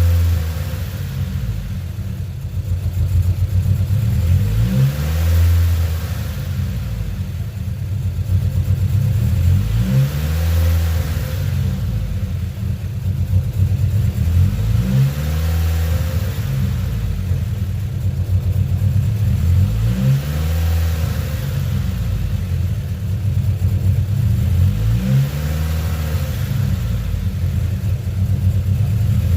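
Turbocharged Honda Civic four-cylinder engine running at idle, its speed rising and falling in a regular cycle about every five seconds: a hunting, surging idle.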